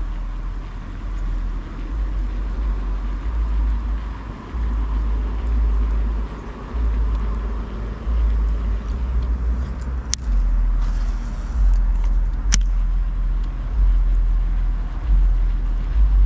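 Wind buffeting the microphone: a low, uneven rumble that surges and drops in gusts, with two sharp clicks about ten and twelve and a half seconds in.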